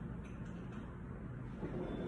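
Faint clicks and taps of wooden shape-stacker pieces being moved and set down on a table, over a low steady room hum.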